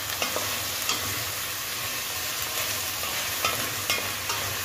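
Wooden spoon stirring vegetables in a stainless steel pot, scraping and knocking against the metal several times over a steady frying sizzle.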